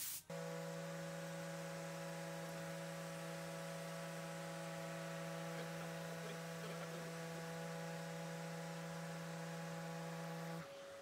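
Festool random orbital sander running at steady speed on the epoxy and wood table top: a steady motor hum with a stack of overtones that drops away near the end.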